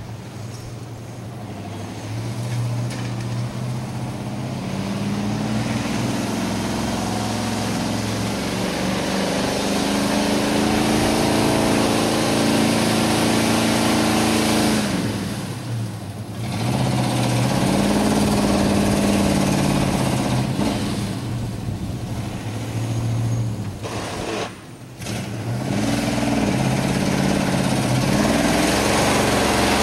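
1978 GMC four-wheel-drive pickup's engine revving in surges as the truck churns through a muddy field, its pitch rising and falling with the throttle and growing louder as it comes closer. The engine note falls away briefly twice, about halfway through and again near the end, before picking back up.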